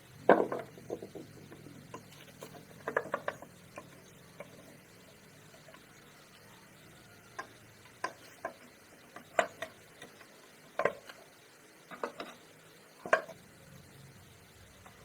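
Irregular knocks and clinks of tools and metal parts being handled, the loudest right at the start, with a string of sharper taps in the second half.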